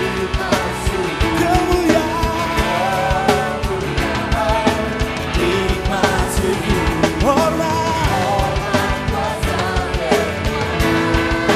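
Live band music with a drum kit keeping a steady beat and a voice singing the melody over it.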